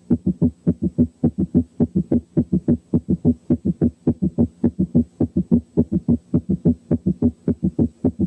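Recorded human heart sounds heard through a stethoscope's bell at the cardiac apex: a fast, regular run of low thumps, several a second.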